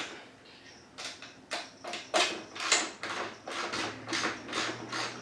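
Socket ratchet clicking in a run of short strokes, about two a second and a little quicker toward the end, as a 10mm frame bolt holding the motocross bike's exhaust is backed out.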